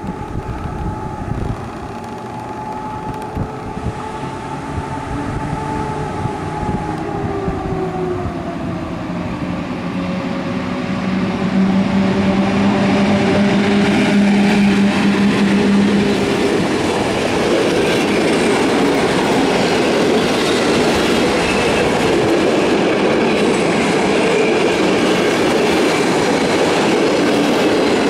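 PKP Intercity EP07 electric locomotive hauling a passenger train along the platform. It comes in with a whine that drops in pitch, grows loudest as the locomotive passes about halfway through, and then gives way to the steady rumble and clickety-clack of the coaches rolling past.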